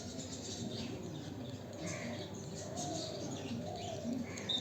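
Budgerigars chirping: short, scattered calls over a steady hiss, with a brief high whistle near the end.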